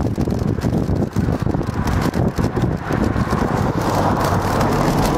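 Wind buffeting the microphone of a bike-mounted camera while cycling, a steady low rumble with frequent small rattles from the bicycle. A hiss grows louder over the last couple of seconds.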